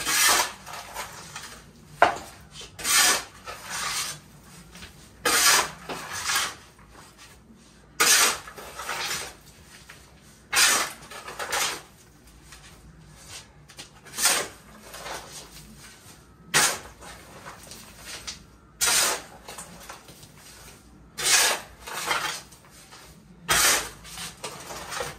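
Steel shovel scraping into loose soil and tossing it, a scoop-and-dump rhythm that comes about every two to three seconds, with an occasional sharp clink of the blade.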